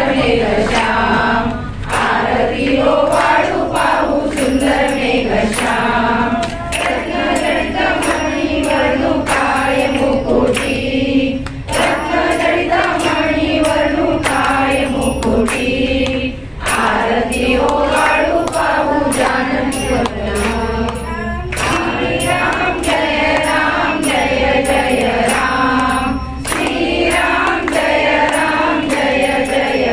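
A group of women singing a Marathi Ram aarti together in unison, with a regular sharp beat keeping time under the voices.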